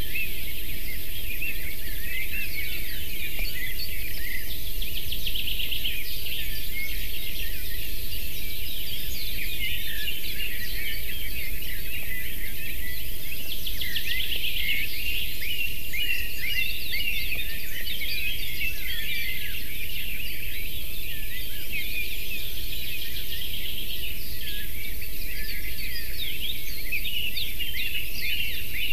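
A chorus of many small songbirds singing at once: overlapping chirps, whistles and rapid trills. Underneath runs a steady low background noise.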